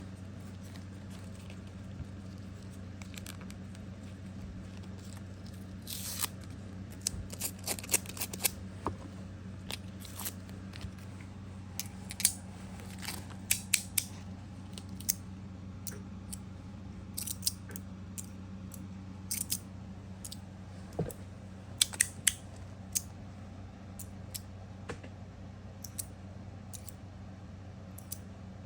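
Rapid EDC RapidPRO stainless steel magnetic fidget slider being worked by hand: its plates slide and snap into place with sharp metallic clicks, irregular and often in quick clusters. A low steady hum runs underneath.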